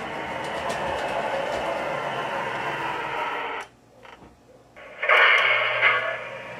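Model CTA L train rolling along the track, a steady running noise that stops abruptly about three and a half seconds in as the train halts. About a second and a half later comes a brief loud, tinny sound, as from a small speaker, with a low hum under it, lasting about a second.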